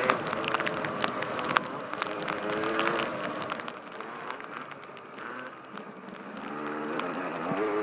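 Dirt bike engine running under way on a trail ride, its pitch shifting up and down with throttle, with scattered sharp clicks and wind noise on the microphone. The engine eases off and goes quieter around the middle, then pulls up and gets louder again near the end.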